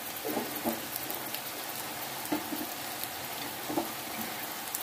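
Boiled beef pieces, onions, capsicum and green chillies sizzling steadily in oil in a flat pan.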